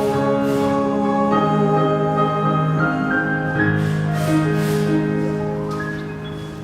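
Instrumental ending of a slow ballad's backing music: held chords with no singing, fading out near the end.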